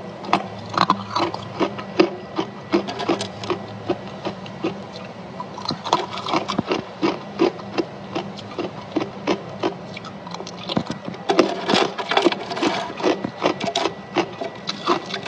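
Someone chewing chunks of freezer frost, giving rapid crisp crunches several times a second, thickest about a second in and again late on.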